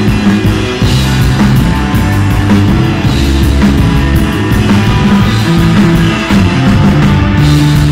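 A rock band playing loudly live, with electric guitar, bass and a drum kit, in a dense psychedelic desert-rock instrumental.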